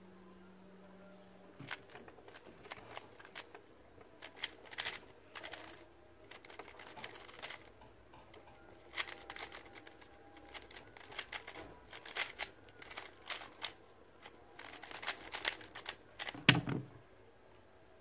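GAN Mini M Pro speedcube being turned fast, its plastic layers clicking and clacking in rapid bursts with brief pauses through a solve of about fifteen seconds. Near the end a loud thump as the hands come down on the Speed Stacks timer pads to stop it.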